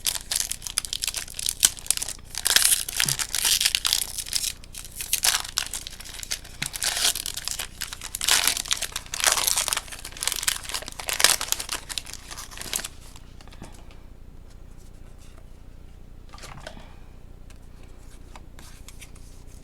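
Foil wrapper of a Pokémon booster pack being torn open and crinkled by hand: a run of sharp rips and crackling rustles for about thirteen seconds, then it goes quieter apart from one short rustle a few seconds later.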